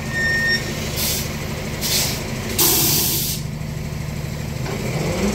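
Freightliner roll-off truck's diesel engine running steadily while it lowers a container down its tilted bed, with three sharp hisses of released air about one, two and two and a half seconds in, the last one the longest.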